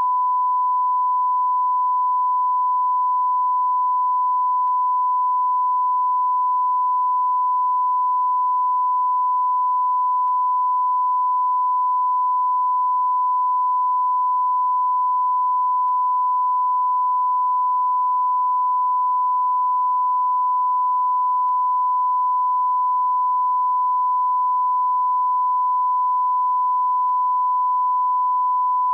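Beep sound effect: one steady, single-pitched electronic beep tone held without a break.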